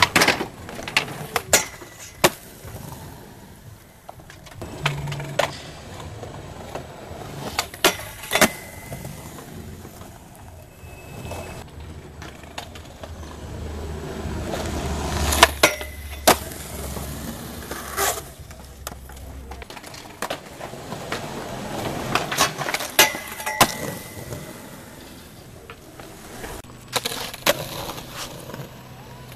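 Skateboarding on concrete: wheels rolling, rising and falling as the board speeds up and slows, broken by sharp cracks and knocks of board pops, landings and the board hitting the ground, a few of them ringing briefly.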